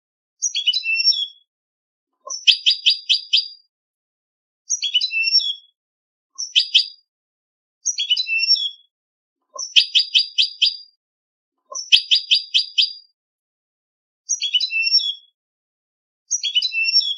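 European goldfinch song from a contest-song tutor recording: nine short phrases of bright, high twittering notes, each about a second long with a second or so of silence between them. A tumbling phrase alternates with a faster run of repeated notes.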